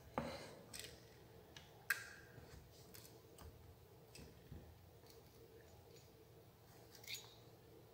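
Thin copper wire and a small metal helping-hand clip being handled on a wooden board: a few faint, sharp clicks, the loudest about two seconds in, with quiet handling between them.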